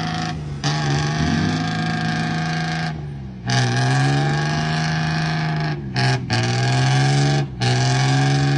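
Truck air horn sounding in a series of long blasts, each sliding slightly down in pitch at the start and then holding steady, with one short toot about six seconds in.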